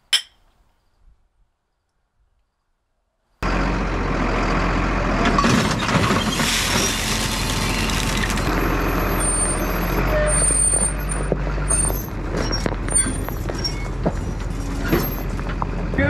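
Tractor engine running steadily, cutting in abruptly about three seconds in after near silence.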